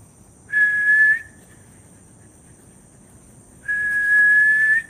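A person whistling two long, steady notes at the same high pitch, the second longer than the first, each lifting slightly at its end. Crickets keep up a faint high trill behind.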